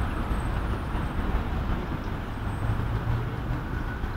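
Road traffic on a city square: a steady low rumble, with a heavier vehicle engine tone swelling about two and a half to three seconds in.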